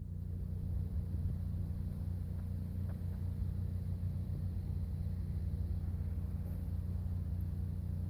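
Mercedes Sprinter van running with a steady low rumble from its engine and drivetrain.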